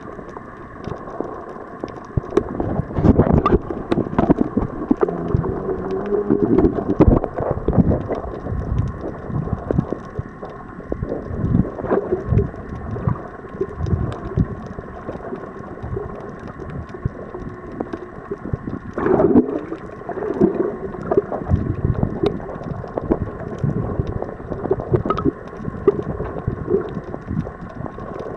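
Muffled underwater noise heard through a camera held below the surface: irregular sloshing and gurgling with frequent knocks and bumps, over a faint steady hum.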